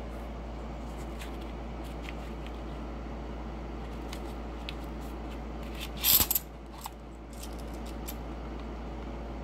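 Paper wrapper of a roll of half-dollar coins being handled and torn open by hand: light rustles and clicks, then one brief, loud rip about six seconds in, over a steady low hum.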